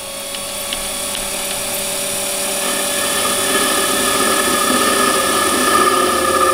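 Warco WM180 mini lathe running while a Glanze indexable chamfering tool cuts a chamfer on a spinning metal bar. From about halfway in, a higher ringing builds and grows louder as the cut goes deeper: tool chatter.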